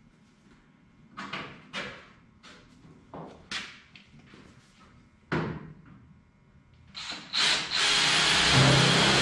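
Hands and tools working on a race car's front body panels: a handful of sharp knocks and clacks at uneven intervals. About eight seconds in, a loud, steady rushing noise sets in and keeps going.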